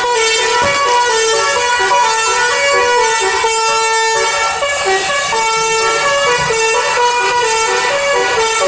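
Indonesian bus 'telolet' multi-tone air horn playing a melody of notes that step quickly up and down, loud and without a break.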